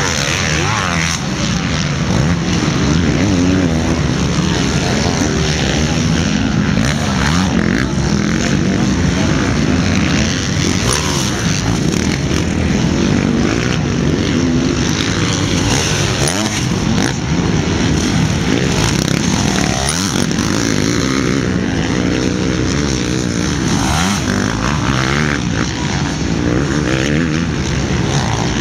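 Motocross motorcycles racing on a dirt track, their engines revving continuously, the pitch rising and falling as the bikes accelerate and pass.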